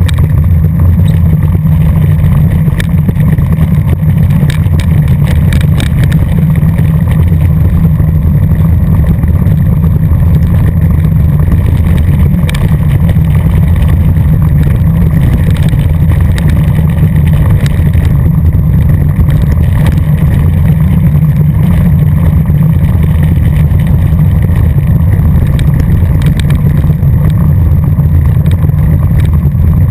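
Wind buffeting the microphone of a camera riding down a loose gravel road by bicycle, a steady low rumble along with the tyres crunching over gravel. Spells of rattling clicks come about four to six seconds in, around the middle and near the end.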